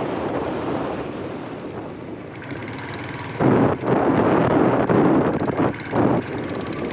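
Steady rush of wind and road noise from a moving vehicle. From about three and a half seconds in, heavy wind buffets the microphone in loud gusts, with short dips between them.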